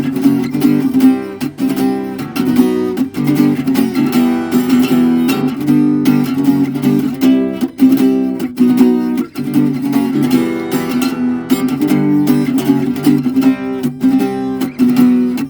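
Acoustic guitar strummed in a steady rhythm, playing chords with no singing.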